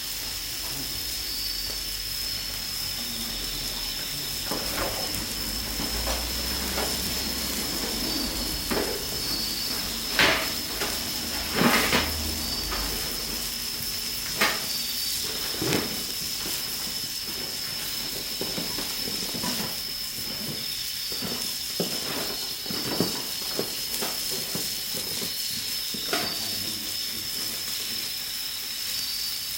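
Pork sizzling in a pan over a campfire, with a few sharp clinks of a utensil against the pan, mostly between about ten and sixteen seconds in.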